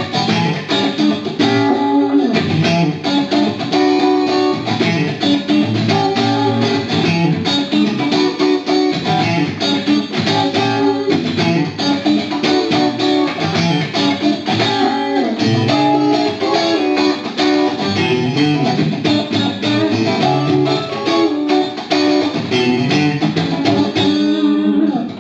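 Suhr Classic Antique Stratocaster electric guitar played through an amp on its neck and middle pickups together, a continuous stream of picked notes and chords.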